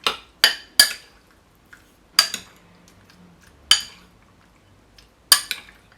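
Spoon clinking against a bowl while stirring seasoned raw shrimp: six sharp clinks at uneven intervals.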